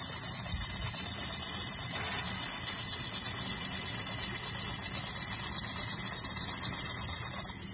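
1000 W handheld fiber laser welder running a seam on thin stainless steel: a steady high-pitched hiss that cuts off shortly before the end as the weld finishes.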